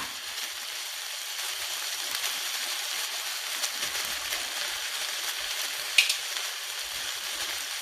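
Chicken, potatoes and vegetables sizzling steadily in a pan on the stove as the leftover potato liquid cooks off, with a short sharp click about six seconds in.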